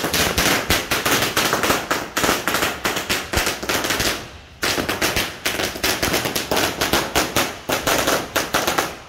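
Firecrackers going off in a rapid, crackling run of many sharp pops in quick succession, like machine-gun fire. The run breaks off briefly about four seconds in, then starts again until near the end.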